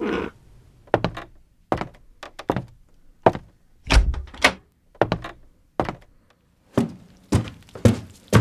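Radio-drama sound effects: a string of irregular thunks and knocks, about two a second, some with a short ring.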